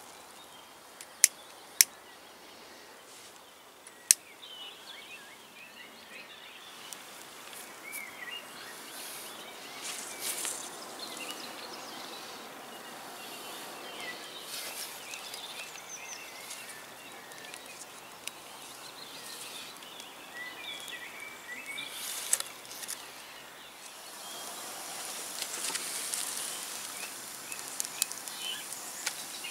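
Small wood campfire being lit: three sharp clicks in the first few seconds, then kindling catching with faint crackling that grows toward the end. Wild birds chirp throughout.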